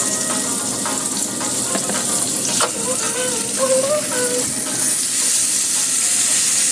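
Food frying in a pan of hot oil, a steady sizzle throughout, with a sharp click about two and a half seconds in and a faint voice briefly in the middle.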